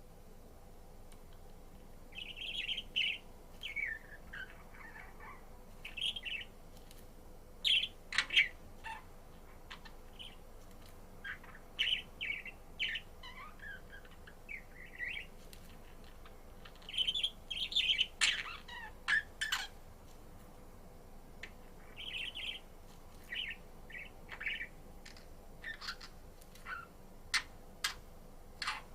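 Pet budgerigar chirping and warbling in short, irregular bouts, with a few sharp clicks between the calls.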